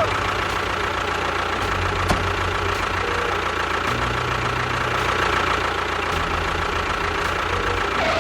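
An engine running steadily at idle, with a low, fast knocking beat.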